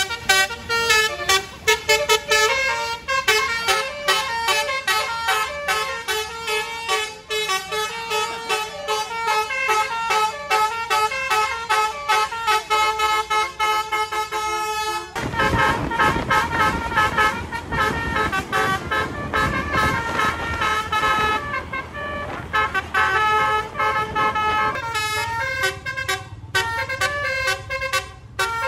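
Indonesian bus Basuri musical air horn ('telolet') playing a fast, repeating melody of short stepped notes. About halfway through, a loud rushing noise joins in under the notes for several seconds.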